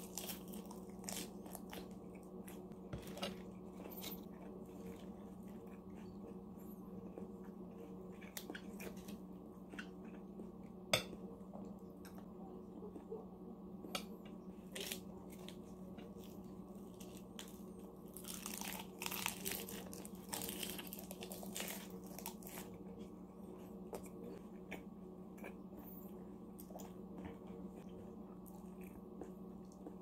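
Close-miked eating of lettuce wraps: crisp lettuce crunching, biting and wet chewing, with many short mouth clicks. A denser run of crunchy rustling comes about two-thirds of the way through, over a steady low hum.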